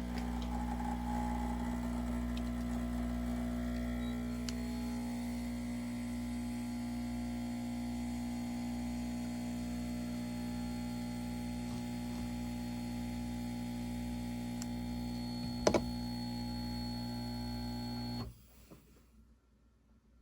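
A mains-powered kitchen appliance humming steadily, with a single sharp click about three-quarters of the way through. It cuts off abruptly near the end.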